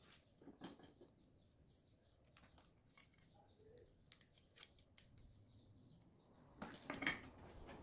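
Faint clicks and taps of a plastic lamp housing and small circuit parts being handled. A louder short clatter of plastic knocks comes near the end.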